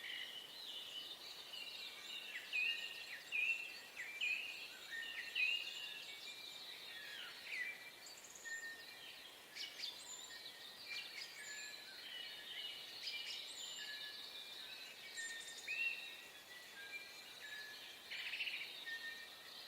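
Dawn chorus of many small birds chirping and singing at once, short overlapping calls and quick rising and falling notes throughout, over a faint steady outdoor hiss.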